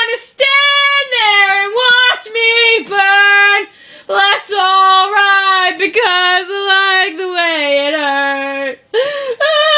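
A young woman's exaggerated wordless wailing cry, drawn out in long held, sung-like notes that step lower in pitch as it goes on, with a couple of brief breaths between.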